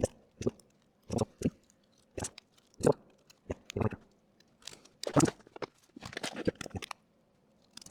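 Irregular clicks, taps and crackles of a laptop's small plastic parts and connectors being handled and pressed into place during reassembly.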